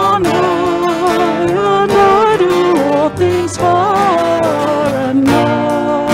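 Live worship band playing a slow hymn: a singer carries the melody, backed by acoustic guitar and a band.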